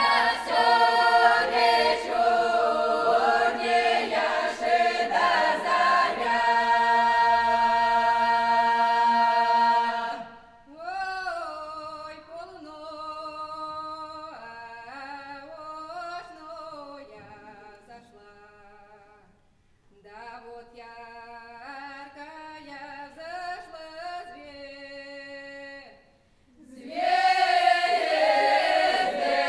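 Unaccompanied folk choir singing a traditional Kuban Cossack song in several parts, holding a long chord that cuts off about ten seconds in. A single voice then sings the next phrases alone, more quietly, and the full choir comes back in loudly near the end.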